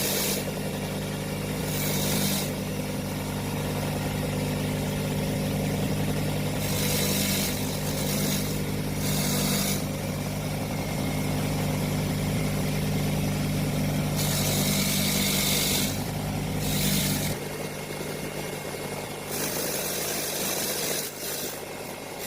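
An electric cleaning machine's motor hums steadily, with repeated bursts of high hiss over it. The hum stops about three-quarters of the way through, and the hissing bursts carry on.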